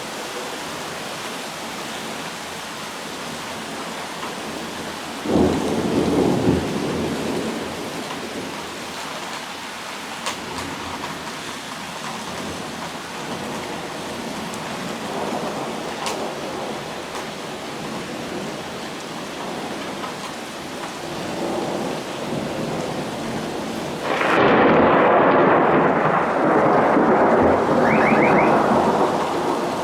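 Thunderstorm: steady rain hissing, with a sudden close thunderclap about five seconds in that lasts a couple of seconds, and a longer, louder peal of thunder from about 24 seconds in until near the end.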